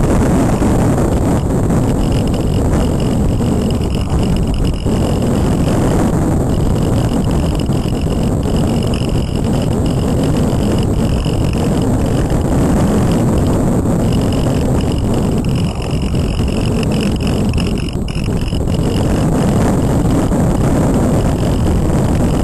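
Airflow rushing and buffeting over the onboard camera's microphone on a Multiplex Cularis model glider in flight. The rush is steady and loud, with a faint high whine that comes and goes.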